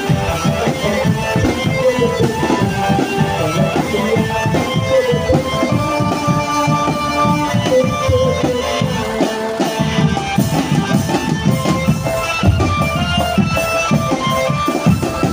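Live drum band music: fast, dense drumming with a melody playing over it.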